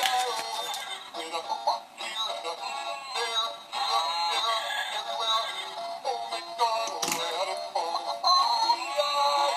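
Children's song music with a synthesized singing voice over a backing track.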